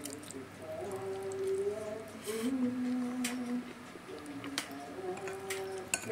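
A slow tune of held notes stepping up and down in pitch, with scattered light clicks of a metal fork against a plate.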